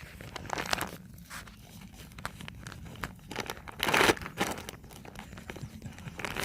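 Plastic treat packaging crinkling and tearing as a dog works at it, in irregular rustles with a louder burst about four seconds in.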